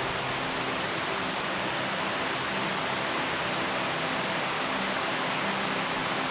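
Steady rush of water pouring down a man-made waterfall.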